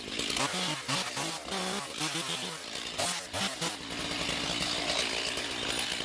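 Stihl chainsaw running, revving up and down, then held at steady high revs from about four seconds in.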